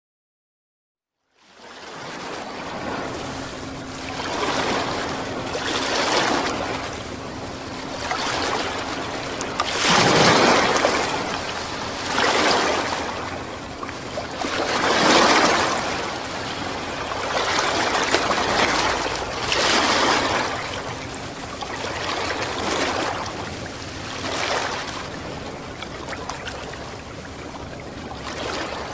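Ocean surf with wind, starting about a second and a half in: waves break and wash in, surging and easing every two to three seconds. Two surges, about a third and halfway through, are the loudest, and a faint steady hum runs underneath.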